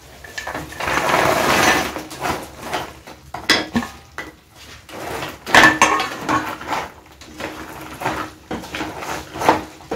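Fried shakkarpare pieces sliding off a plate into a kadhai of sugar syrup with a short rush, then a wooden spatula stirring them, knocking and scraping against the pan again and again.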